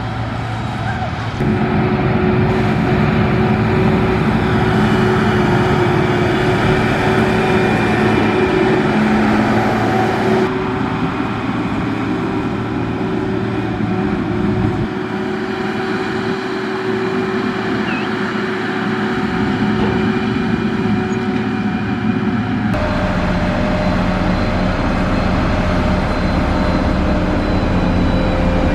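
Heavy construction machinery's diesel engines running steadily under load. The sound changes abruptly three times, about 1.5, 10.5 and 23 seconds in, where different clips are cut together.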